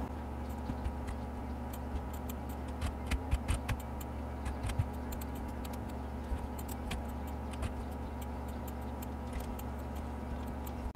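Scattered clicks of a computer mouse and keyboard keys, irregular and a few per second, over a steady low electrical hum.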